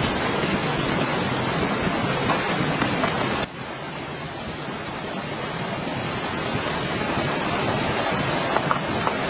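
Steady rain falling, a dense hiss with scattered drop ticks. It drops abruptly in level about a third of the way in and slowly builds again.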